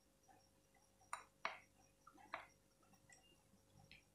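Three light clinks of a metal spoon against a glass mixing bowl as sauce is spooned onto raw chicken, spaced about half a second to a second apart, with near silence between them.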